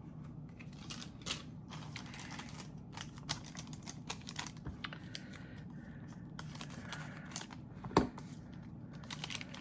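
Trading cards being handled and flipped through in the hands: a run of light, irregular clicks and taps, with one sharper snap about eight seconds in.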